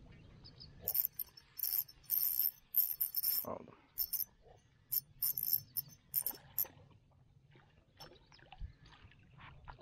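Spinning reel's drag clicking in short, irregular high-pitched bursts as a hooked perch pulls line off against it on light tackle. The bursts run for the first two-thirds of the stretch and then stop as the fish comes in.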